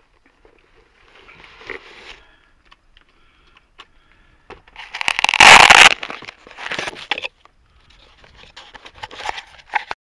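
Handling noise close to a plane-mounted camera's microphone: the model plane rustles and scrapes as it is carried and set down inside a vehicle. The loudest scrape comes about five seconds in and lasts about a second, with lighter rustling before and after.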